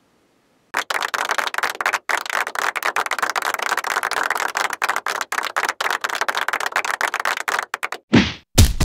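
A dense, rapid crackling rattle lasting about seven seconds, then two short, deep thumps near the end.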